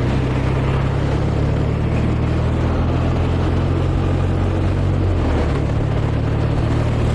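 Motorcycle engine running steadily under a constant rushing noise from wind and road; the engine note drops slightly about five seconds in.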